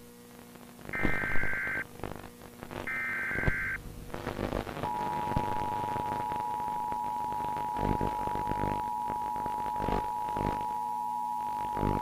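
Emergency Alert System tones. The last two of the three shrill, buzzy digital header bursts sound, each under a second. About five seconds in, the steady two-tone attention signal (853 and 960 Hz) starts and holds for about eight seconds. This sequence announces a tornado warning broadcast.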